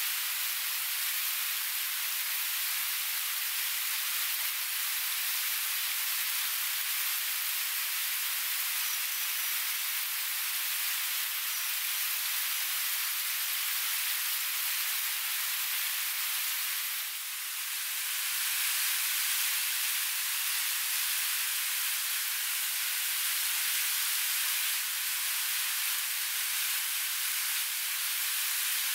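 Steady rushing water of a river and waterfall, an even hiss with no distinct events. It dips briefly and shifts slightly in tone a little over halfway through.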